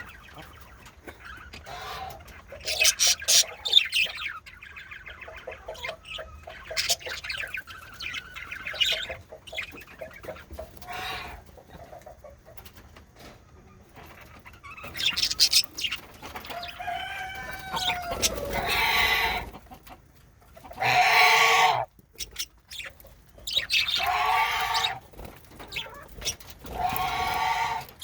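Male budgerigars chattering with quick chirps and clicks, a few whistled up-and-down glides, then louder harsh squawks over the second half.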